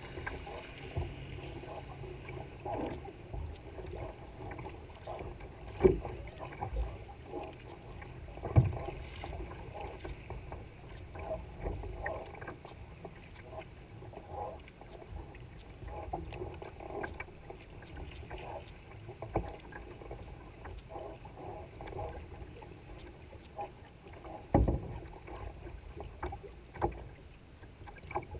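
Water lapping and splashing against the hull of a tandem sea kayak as it moves through light chop, with paddle splashes and drips. A few sharp knocks stand out, loudest about six, eight and a half and twenty-four seconds in.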